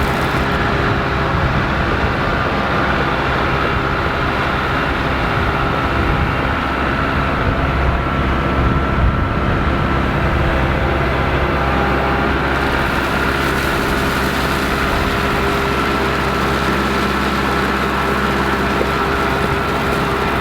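Diesel engine of a Kubota MX 5400 tractor running steadily.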